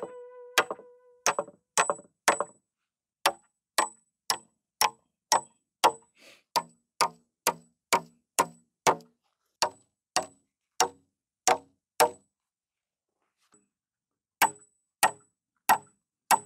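Hammer driving nails into wooden wall framing: sharp ringing strikes, about two a second, with a short pause about twelve seconds in before the hammering resumes.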